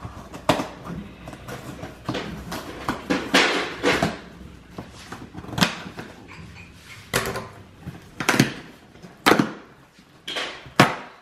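Packing tape being cut and pulled off the top of a large cardboard box, with the cardboard flaps handled: a string of short, irregular scraping and tearing noises.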